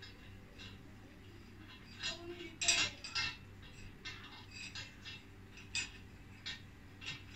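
Irregular metallic clinks and ticks from a steel bar turning the tensioner at the foot of a chain on a tension-test rig, loading a 3D-printed PLA test piece; the loudest clink comes a little under three seconds in.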